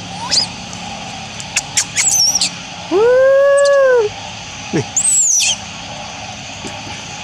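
Animal calls: several short high chirps and falling whistles, and about three seconds in one loud arched call that rises and falls over about a second.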